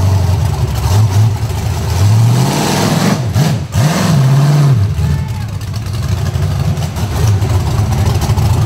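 Rock bouncer buggy's 800-horsepower Chevrolet V8 revving hard twice in quick succession, about two and four seconds in, as it claws up a near-vertical dirt ledge, then running at lower revs.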